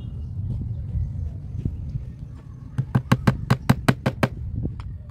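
A small hammer tapping quickly on a wooden chair-seat frame, tacking upholstery cloth down: a run of about ten light blows in about a second and a half, a little past halfway, then two fainter taps.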